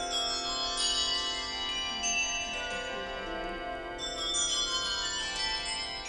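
A set of 24 handbells rung in change ringing: a fast, even stream of struck bell notes, each ringing on over the next.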